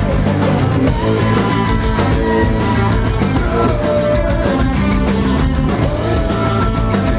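Rock band playing live: guitar over bass and drums, with held notes that bend in pitch and steady drum and cymbal hits.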